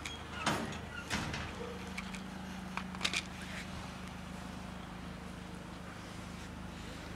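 A steady low mechanical hum, with a few short sharp clicks and rustles about half a second, one second and three seconds in.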